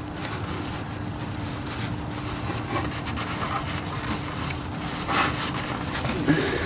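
A rag rubbing and wiping around the freshly tightened oil drain plug, with a few louder scuffs about five seconds in, over a faint steady hum.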